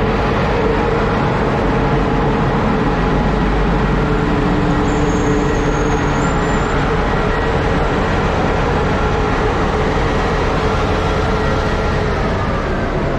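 A Romanian Class 40 electric locomotive built by Electroputere Craiova stands with its equipment running: a loud, steady hum with several held tones.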